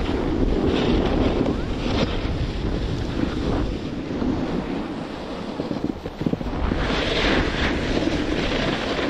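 Wind rushing over the microphone while skiing downhill, with skis hissing over snow and swelling in louder scrapes a few times.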